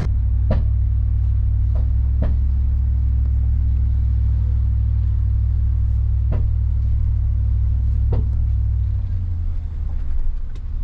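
Low, steady rumble of a pickup truck running, heard from inside the cab, shifting slightly near the end. A few sharp clicks sound through it.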